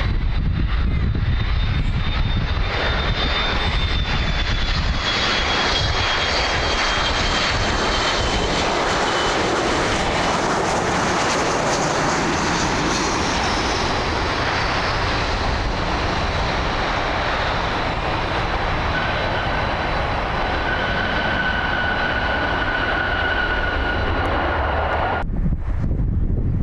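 McDonnell Douglas MD-80-series jetliners and their rear-mounted Pratt & Whitney JT8D turbofans. First comes loud jet noise with a high whine that slides down in pitch as an aircraft passes, then another at takeoff power with a steady whine over the noise. The sound cuts off abruptly near the end.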